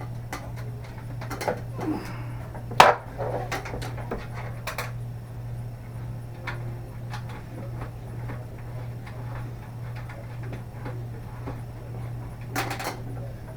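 Scattered light clicks and taps of small screws and a screwdriver against a light fixture's metal mounting as the screws are started. One sharper knock comes about three seconds in, over a steady low hum.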